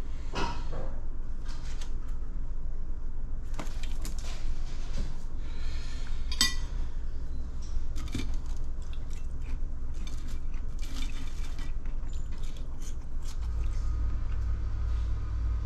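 Metal fork clinking and scraping on a ceramic plate of french fries, with scattered small clicks and the rustle of manga pages being turned. A steady low hum runs underneath and gets louder near the end.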